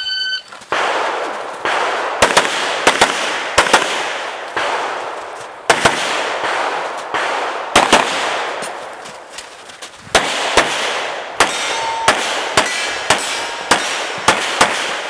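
Shot timer's start beep at the very start, then a competition pistol firing in quick strings of shots with short lulls between them, each shot sharp and echoing.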